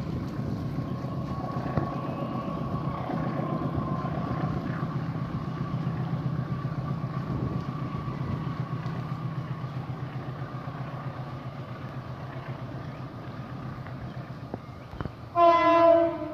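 Diesel locomotive approaching with a steady low rumble, then one loud horn blast of under a second near the end.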